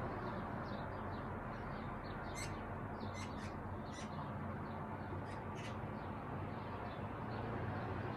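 Birds chirping and calling in short bursts over a steady background hum.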